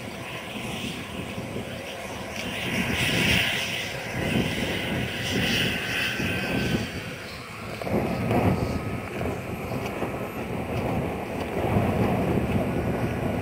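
Model aircraft engines running at the flying field, a noisy drone that swells and fades.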